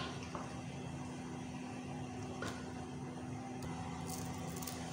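A steady low mechanical hum with a constant tone, and a few faint clicks of a serving spoon against the serving dish while beef korma is spooned out.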